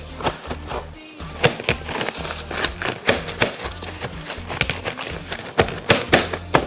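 Background music with a steady bass line. Over it come irregular crinkling taps from paper towels being pressed onto raw pork chops to dry them.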